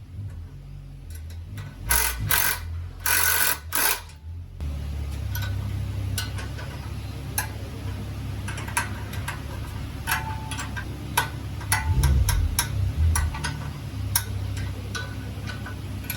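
Muffler replacement work under a car: a few short, loud bursts of noise in the first four seconds, then a steady low hum with scattered metallic clicks and taps.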